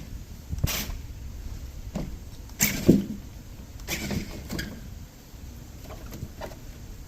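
Remote-control car driving over polystyrene foam: its electric motor runs under several sharp knocks and scrapes as it bumps over the foam pieces, the loudest about three seconds in.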